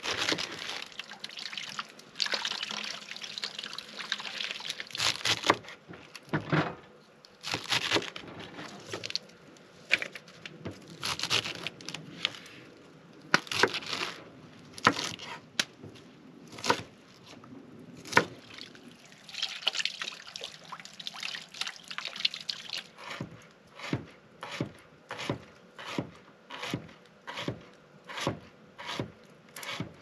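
Kitchen knife cutting salad vegetables on a wooden cutting board: irregular crisp crunching cuts through lettuce and cabbage, then, from about two-thirds of the way in, a steady run of chops, a little under two a second.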